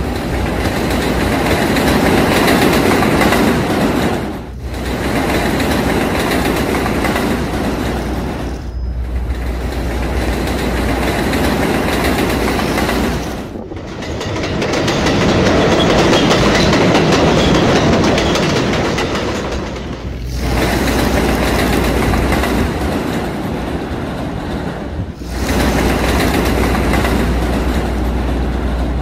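Subway train running on its tracks with a steady rumble and wheel clatter. The sound breaks off briefly and resumes about five times, in segments of roughly four to six seconds.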